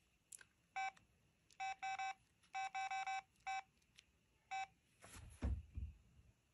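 Samsung Freeform III phone's keypad tones: about ten short, same-pitched electronic beeps in irregular runs as its keys are pressed to move through the menu. A few low thumps follow near the end.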